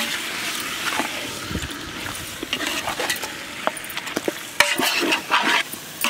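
Chicken pieces frying in oil with onion-tomato masala in a large aluminium pot, sizzling as a metal ladle stirs and scrapes through them, with a cluster of louder scrapes and knocks against the pot about four and a half seconds in.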